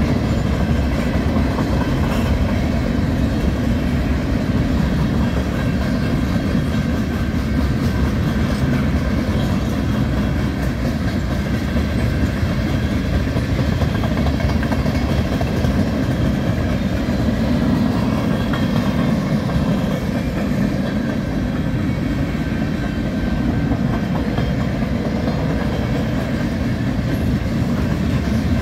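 Freight train cars rolling past close by: a loud, steady noise of steel wheels running on the rails.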